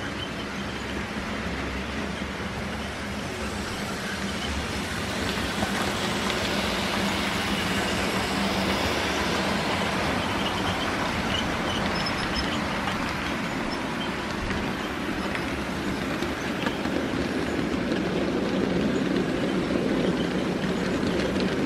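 Model trains running on layout track: a steady rolling rattle of wheels on the rails, growing louder about five seconds in as trains pass close by.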